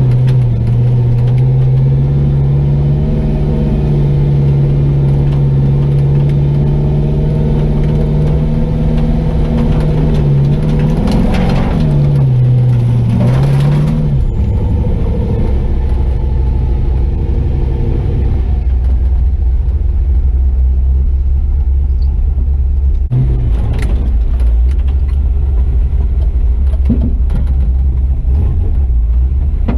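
Chevy truck's LS-swapped 6.0-litre V8 running under way, held at steady revs, then the revs drop and rise again about twelve seconds in before settling lower and steady for the rest. A single sharp knock comes about two-thirds of the way through.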